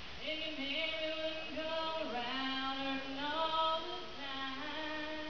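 A woman singing solo and unaccompanied, with no instruments, in long held notes that slide between pitches, phrase after phrase.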